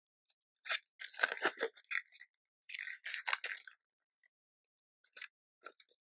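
Hands handling crafting materials: two spells of crinkling and rustling, then a few light ticks near the end.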